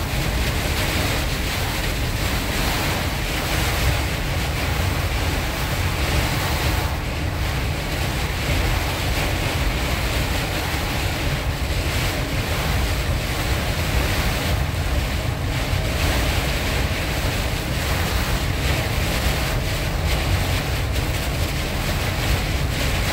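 Heavy rain hitting a moving car's roof and windshield in a severe storm, with wind and tyre spray, a loud steady rush heard from inside the cabin.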